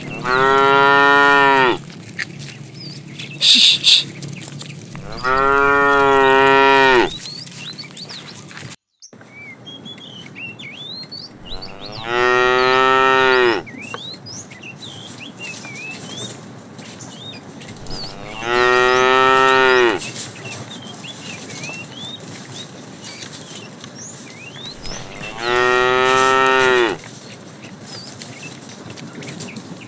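A cow mooing five times, each a long, pitched moo of about two seconds, spaced roughly six seconds apart. Faint bird chirps sound between the moos.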